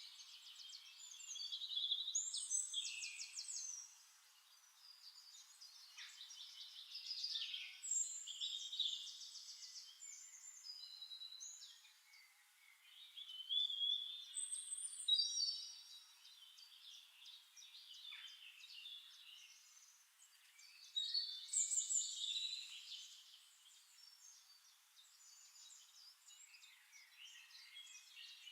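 Songbirds singing in short phrases of high chirps and rapid trills, with brief pauses between them.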